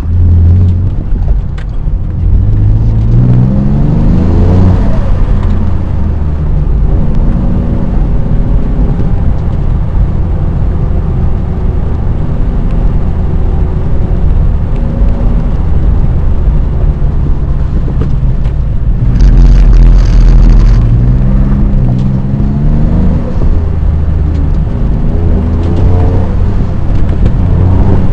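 Twin-turbocharged 2004 Nissan 350Z's 3.5-litre V6 driven hard, its pitch climbing with the revs and dropping back again several times. About two-thirds through there is a loud rushing hiss lasting about two seconds.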